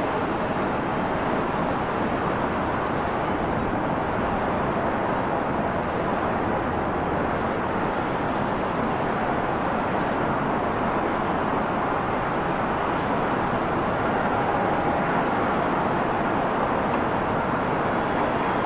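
Twin jet engines of a Boeing 737 at takeoff power through the takeoff roll, lift-off and climb-out: a steady, unbroken rushing noise.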